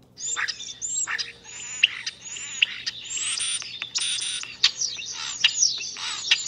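Starling song played as a recording through a smart display's small speaker: a dense, unbroken jumble of whistles, sliding notes, chatter and clicks, starting about a third of a second in.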